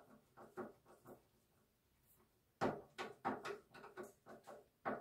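Screwdriver and cable lug working a battery's positive terminal bolt: a few light clicks in the first second, then, after a pause, a quick run of clicks and small knocks through the second half.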